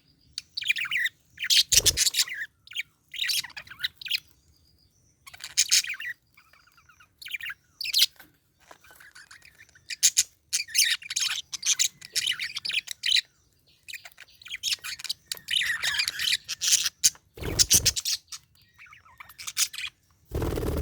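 Budgerigar chattering and chirping in quick high bursts of a second or two, with short pauses between them. A couple of low thumps, and a louder rush of noise near the end.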